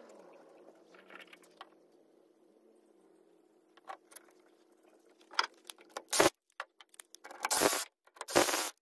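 Work on a truck's front suspension: scattered small metal clicks over a faint steady hum, then, in the last three seconds, sharp clanks and three loud, short bursts of noise.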